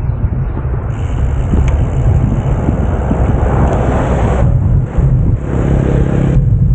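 A motor vehicle's engine running close by over steady road noise and low rumble, with a pitched engine note coming up about five and a half seconds in.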